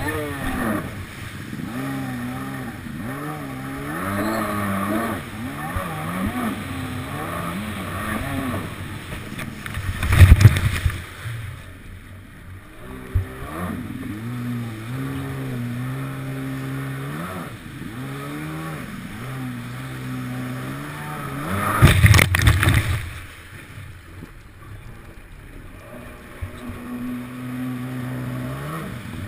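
Kawasaki 750SX stand-up jet ski's two-stroke twin running on the water, its pitch rising and falling over and over as the throttle is worked, with two short loud bursts of rushing splash, about ten seconds in and again about twenty-two seconds in.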